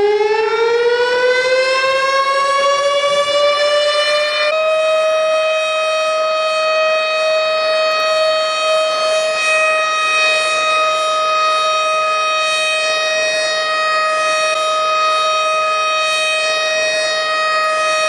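Ship's alarm siren winding up in pitch over about four seconds, then holding one steady, loud tone until it cuts off abruptly. It is sounded as the abandon-ship alarm.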